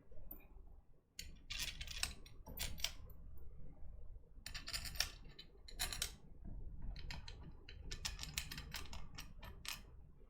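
Small metal screws clicking and tinkling as they are dropped into the screw holes of a keyboard case, in scattered light taps and short clusters of ticks.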